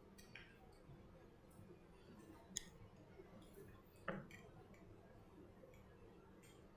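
Near silence: quiet room tone with a faint sharp click about two and a half seconds in and a short soft sound about a second later.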